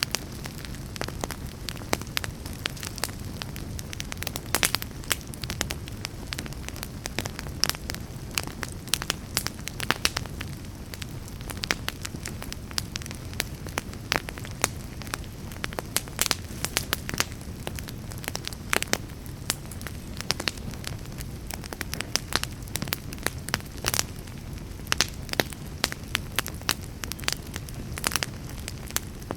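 Logs burning in a fireplace, crackling: frequent irregular sharp pops and snaps over a steady low rumble of flames.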